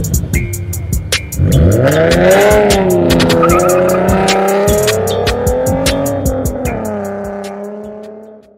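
Intro music mixed with car sounds: an engine revving up and down, with what may be tire squeal and sharp beats. It fades out near the end.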